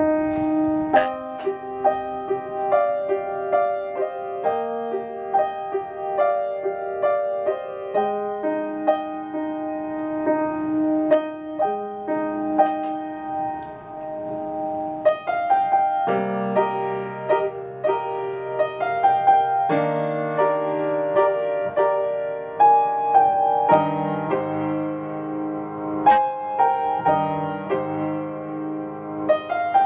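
Upright piano played with both hands: a melody over sustained chords. About halfway through, low bass notes come in and the playing grows fuller.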